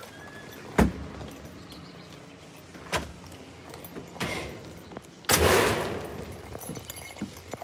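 A front storm door being opened and handled: two sharp latch-like clicks, then a louder rush of noise about five seconds in that fades over a second or so.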